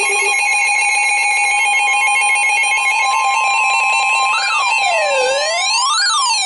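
Weather-radio alert tones: a steady high alarm tone with a stepping, beeping pattern above it. About four seconds in, a siren-like tone joins, sweeping up and down about every second and a half.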